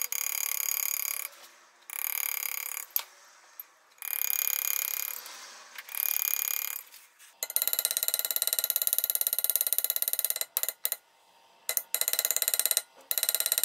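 A steel graver cutting into a brass plate held in a vise: several harsh, ringing scrapes about a second each. From about halfway, a fast rattling run of metal-on-brass ticks with a metallic ring, broken by a short pause.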